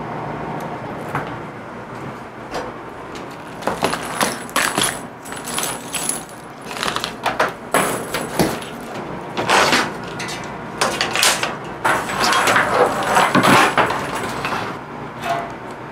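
Irregular rattling and clattering of parts being handled, including a plastic cable drag chain whose links clack as it is fitted along a CNC machine's gantry. The clatter grows busier and louder from about four seconds in.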